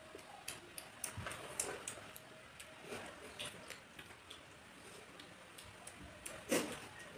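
Eating by hand: fingers mixing and scooping rice with curry on plates, with chewing and lip smacks making scattered faint clicks, and one louder smack near the end.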